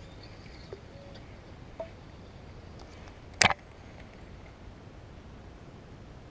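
A quiet background with a few faint clicks, and one short, sharp knock about three and a half seconds in.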